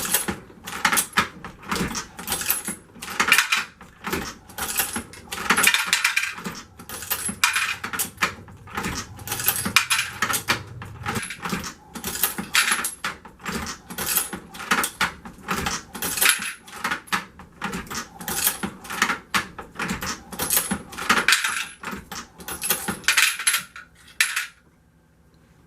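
Lee Pro 1000 progressive reloading press being cycled over and over, brass pistol cases clinking and rattling through it as their mouths are expanded. The clatter stops about a second before the end.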